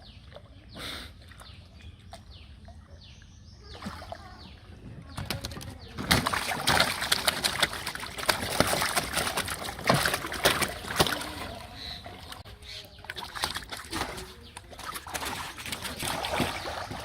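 Water splashing and sloshing: quiet at first, then loud, busy splashing from about six seconds in that eases off near the end.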